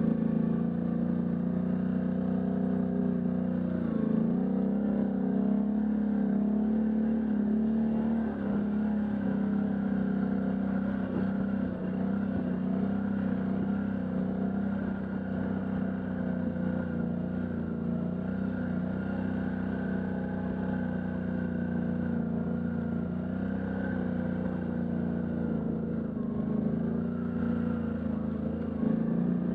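Can-Am Outlander ATV engine running at a steady pace while riding, its pitch dipping and rising slightly about four and eight seconds in.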